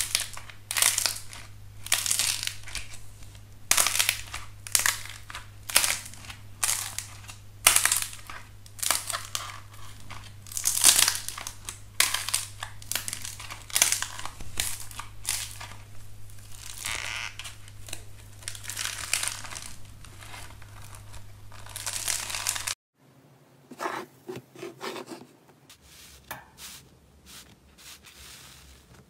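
Kinetic sand moulded into a bear being squeezed and crumbled by fingers: repeated crisp crunching, roughly one to two crunches a second. About 23 seconds in the crunching cuts off, followed by quieter, softer squishing as a hand presses into slime in a plastic tub.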